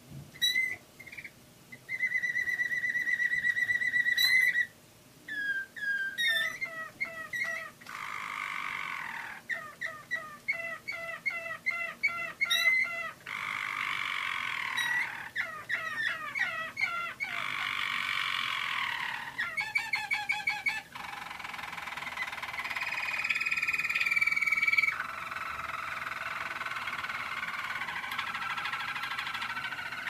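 Roller canary singing a long continuous song in distinct tours: an even trill held for about two seconds near the start, then runs of fast repeated notes and rolling trills, with one short pause about five seconds in.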